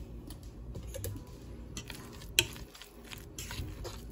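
Light, scattered clicks and taps of a utensil against a metal pot of mashed potatoes, with one sharper click about two and a half seconds in.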